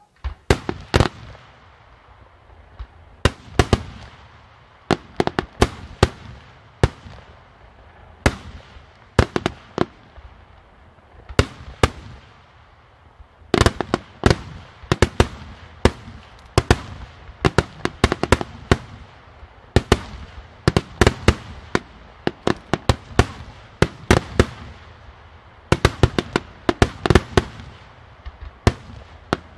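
Aerial firework shells bursting in quick succession: an irregular run of sharp bangs, each trailing off, starting suddenly and coming thickest in the middle and again near the end.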